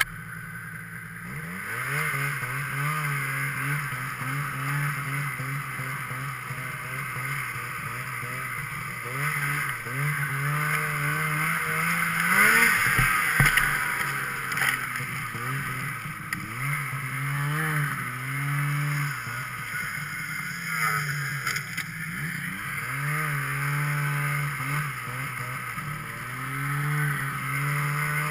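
Snowmobile engine running under the rider, its pitch rising and falling again and again as the throttle is opened and eased off, over a steady hiss of track and snow. The loudest stretch is about halfway through, with a couple of sharp knocks.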